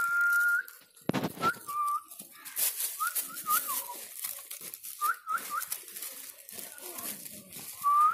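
Puppies whining: short, high-pitched squeals that hook upward in pitch, some in quick runs of two or three, as they jump up at a person's hand. A single thump about a second in.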